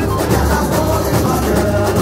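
Samba school bateria playing samba: deep surdo bass drums pulsing steadily about twice a second under dense snare and small-percussion rattle, with a sung melody over it.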